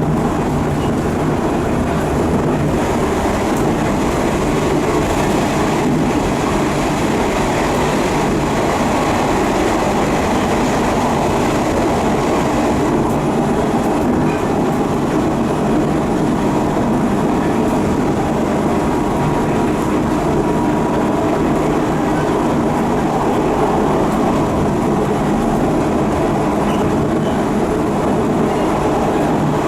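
Running noise of a JR East 719 series electric train car, KuMoHa 719-40, at speed: a steady jet-like roar from its worn bogie over the sound of the wheels on the rails. The uploader puts this abnormal noise down to bearings worn with age, whose play lets parts knock and vibrate.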